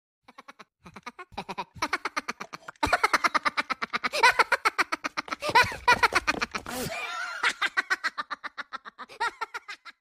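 Ringtone of cartoon Minion voices laughing in quick, repeated giggles, getting louder about three seconds in and tailing off near the end.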